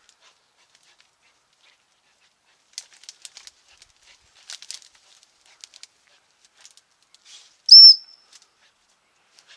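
A gundog whistle blown once, a short shrill pip about eight seconds in, a command to the working dog. Before it, faint crackling and rustling in the bramble cover.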